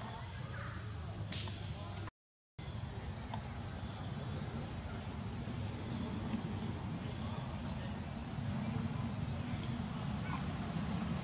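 Steady, high-pitched drone of insects singing in chorus over a low rumble, cut out by a brief total silence about two seconds in.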